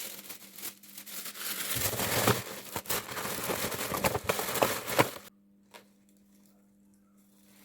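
Gift-wrapping paper being handled and folded around a box: crinkling and rustling with small crackles for about five seconds, then it stops suddenly.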